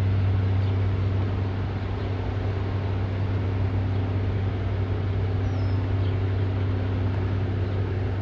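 Railroad maintenance-of-way machinery working the track: a steady low diesel engine drone with a constant rushing, grinding noise over it.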